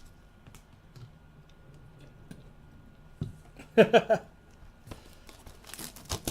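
Quiet handling of a trading-card box and its wrapping: faint clicks and taps, a brief voice sound about four seconds in, and rustling of wrapping near the end.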